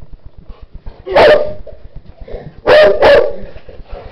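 Dog barking at another dog during play: one bark about a second in, then two quick barks close together about three seconds in.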